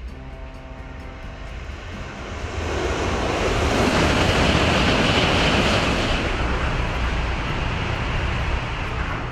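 Shinkansen bullet train passing at high speed: a swelling rush of air and running noise that is loudest about four seconds in, then slowly fades.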